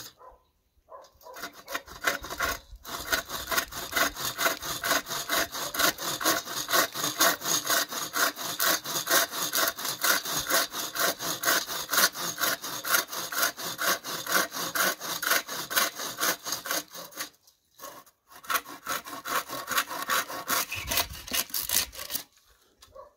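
Hand sawing through a wooden board with a rope-tensioned wooden frame saw: quick, even back-and-forth strokes of the blade in the wood. The strokes stop briefly about two-thirds through, then resume and stop near the end.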